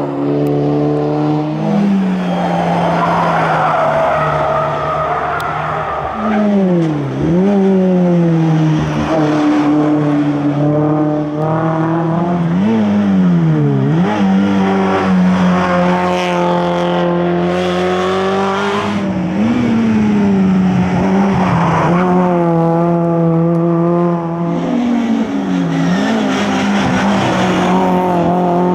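Competition car engine on a hill climb, held at high revs, with the pitch dropping and climbing back sharply about four times as the car brakes into corners and accelerates out.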